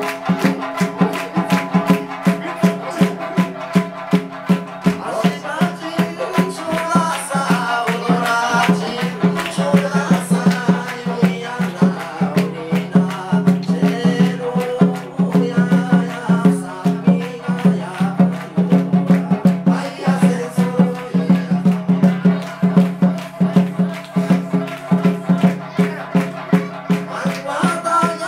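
Live Okinawan folk music for kachāshī dancing: young men singing to sanshin over a fast, steady clicking beat.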